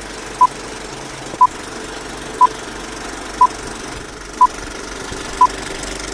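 Six short electronic beeps, one each second, all at the same pitch, over a steady background hum.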